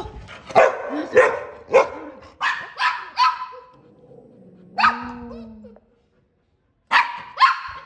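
Pet dogs barking at a street dog outside the gate: a quick run of about seven barks, a single bark about five seconds in followed by a short low whine-like sound, then two more barks near the end.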